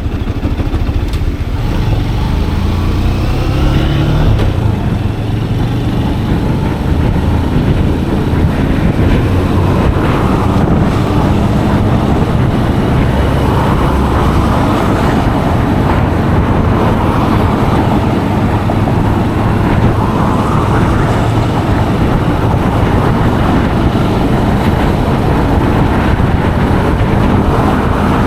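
Motorcycle being ridden, its engine running steadily with changing pitch as it shifts and changes speed, under a constant rush of wind and road noise.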